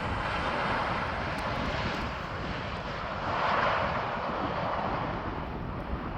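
Jet engines of a landing Boeing 737, a steady rushing whine that swells to its loudest about three and a half seconds in as the plane passes.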